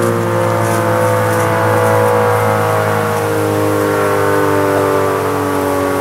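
Sentry 40V2T dual-tone rotating tornado siren sounding its chord, with the pitch sliding slowly and evenly downward.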